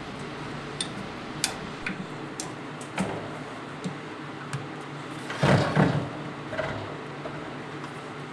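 Light clicks and knocks of a wooden drum shell and lathe fittings being handled, with two louder thumps about five and a half seconds in, over a steady low background.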